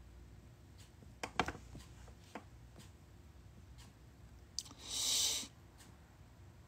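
Quiet room with a few soft clicks and taps about a second in, then a short hissing rustle lasting under a second near the end, the loudest sound here.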